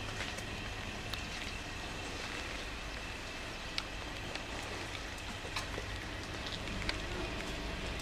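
Steady outdoor ambient noise: a low rumble and hiss, with scattered light ticks and a faint steady high tone.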